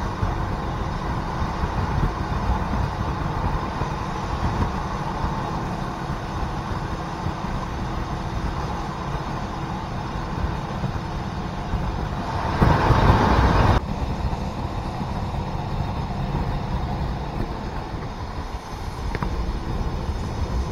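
ALn 668 diesel railcar running on the move while climbing a grade: a steady rumble with a low hum. About two-thirds of the way through comes a louder rush lasting about a second, which cuts off suddenly.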